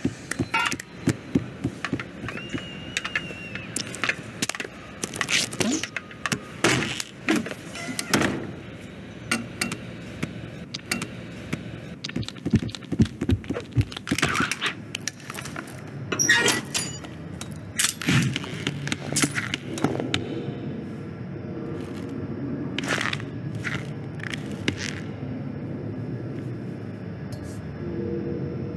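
Cartoon soundtrack sound effects: an irregular run of sharp knocks, cracks and thuds. In the last third these give way to a steady low hum with a few clicks.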